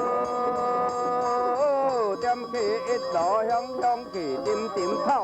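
Traditional temple procession music: a melody with sliding, bending notes over a steady percussion beat of about three strokes a second.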